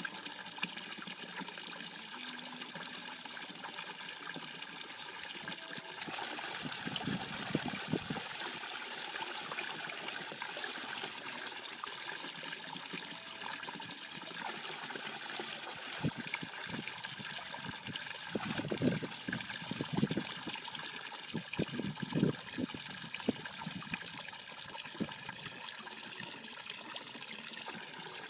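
Water trickling and splashing steadily, with louder bouts of gurgling partway through and again in the second half.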